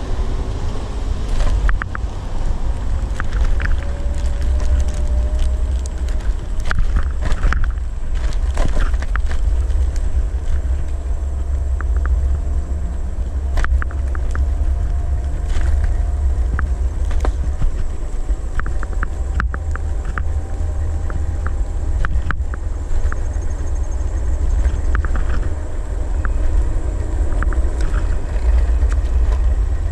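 Segway Ninebot ES1 electric kick scooter riding on asphalt, with wind rumbling on the microphone as the loudest sound. The motor gives a faint whine that rises in pitch over the first few seconds as the scooter gathers speed and then holds steady. Scattered clicks and rattles come from the scooter going over the road surface.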